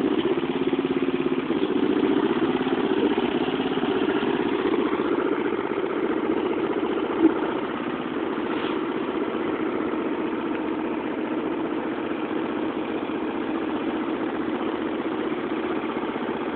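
Lawn mower engine running steadily, its pitch wavering slightly in the first few seconds, with a short sharp click about seven seconds in.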